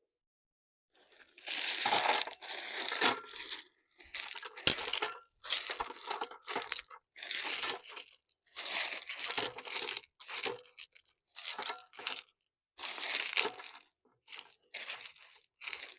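Rocks and soil being shifted and packed by hand around a buried pipe to wedge it level: about ten rough scraping, grinding bursts in irregular succession.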